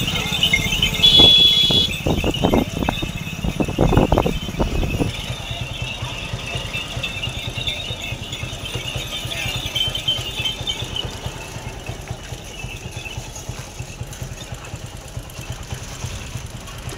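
Motorcycle engine running steadily with a low hum. In the first five seconds there is a cluster of rattling knocks, and about a second in there is a brief high ringing tone.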